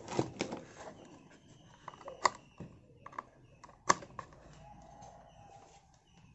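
Scattered light clicks and knocks of small plastic parts and cables being handled, with two sharper clicks about two and four seconds in.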